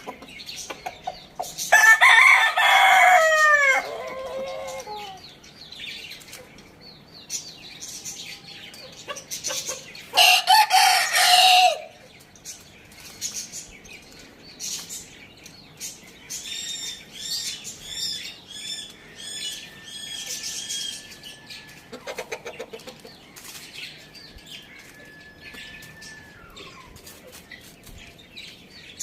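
Rooster crowing loudly about two seconds in, the call sliding down in pitch at its end, then a second loud, harsher burst around ten seconds in. Between and after, fainter clucking and small birds chirping in quick repeated notes.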